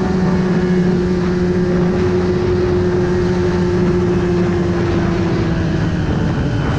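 Snowmobile engine running at a steady cruising speed, its pitch dropping slightly near the end as it eases off.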